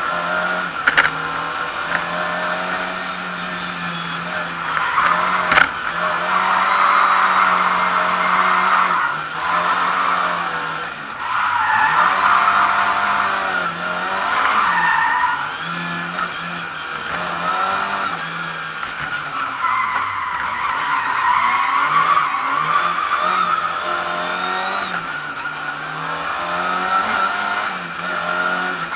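Lada 2101 rally car heard from inside the cabin, its engine revving up and falling back again and again through gear changes, with tyres squealing through the corners. Two sharp knocks about a second and five and a half seconds in.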